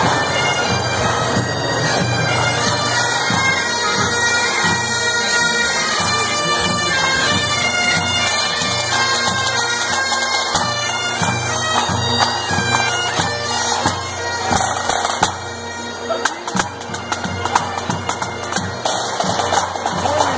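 Pipe band playing: Highland bagpipes sounding their steady drones and melody together, with drums beating under them. Near the end the sound grows quieter and more broken, the drum strikes standing out.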